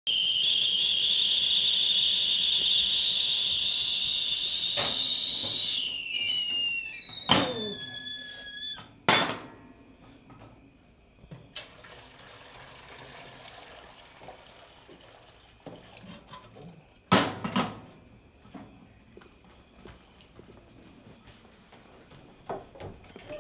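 Stainless-steel stovetop kettle whistling at the boil: a loud steady two-tone whistle that drops in pitch and dies away about six seconds in. Then come a few sharp knocks and hot water being poured into a pot, with a faint steady high tone behind.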